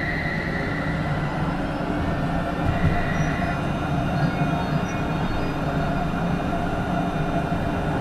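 Rhein-Neckar-Verkehr M8C-NF tram running: a steady rumble of the wheels on the rails under the tones of its modernised inverter (VVVF) traction drive. A high tone fades about a second in and briefly returns a couple of seconds later.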